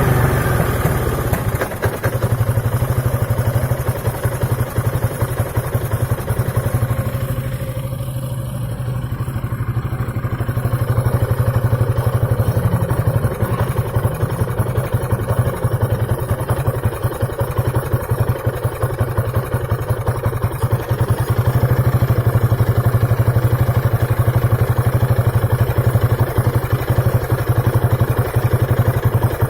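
Piaggio Beverly 500ie scooter's single-cylinder four-stroke engine idling roughly with a 'popcorn' misfire, its speed sagging about a quarter of the way in and then picking back up; the owner traced the misfire and stalling to a faulty ECU.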